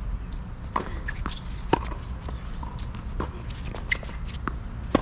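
Tennis rally on an outdoor hard court: a series of sharp, irregularly spaced pops and knocks as the ball is struck by the rackets and bounces on the court, the loudest about two seconds in, with brief squeaks and scuffs of shoes.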